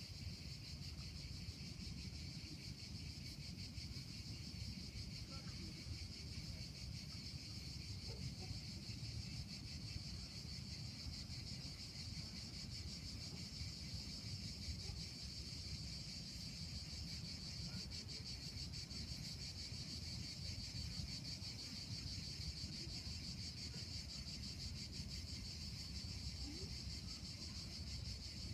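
A steady, dense chorus of insects: a high, continuous buzz that holds without a break. Underneath it is a low rumble of wind on the microphone.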